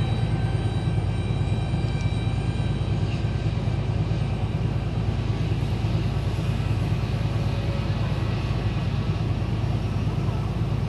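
Steady low drone of an airport ramp bus driving across the apron, heard from inside the bus, with a thin, steady high whine over it.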